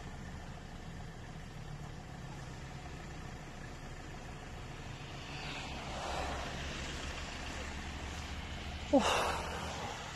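A steady low hum, with a swell of noise around six seconds in and a short cry falling in pitch about nine seconds in.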